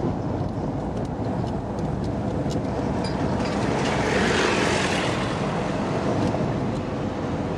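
Steady road and engine noise of a moving vehicle. It swells louder for about a second around four to five seconds in.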